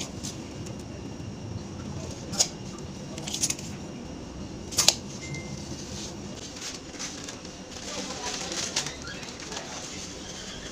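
A few sharp clicks and taps from hand tools being handled, over a steady low background hum.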